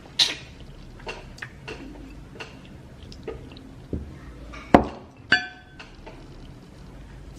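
Dishes clinking and knocking during a meal: scattered light knocks, a louder one a little before five seconds in, and a ringing clink just after it.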